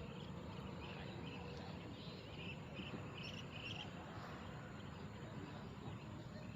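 Outdoor ambience: short, high chirps come and go over a steady low rumble.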